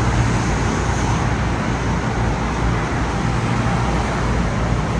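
Steady ambient rumble and hiss with a low hum underneath, with no distinct events.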